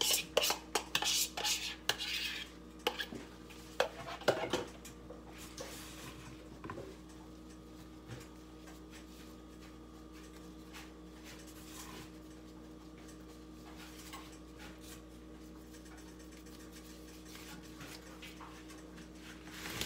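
A spoon scraping and tapping sauce out of a bowl: a quick run of scrapes and clicks in the first four or five seconds, then only a few faint light ticks, all over a steady low hum.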